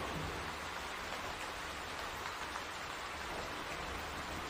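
Steady rainfall, an even hiss of rain on surfaces.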